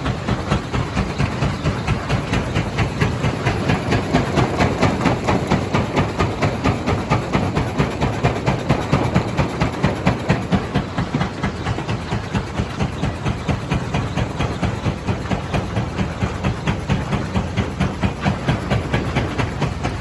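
Jaw-type stone crusher running, a continuous mechanical clatter that pulses evenly about three to four times a second.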